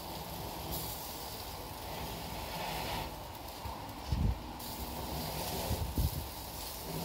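Wind buffeting the microphone, an irregular low rumble over a steady hiss, with two stronger gusts about four and six seconds in.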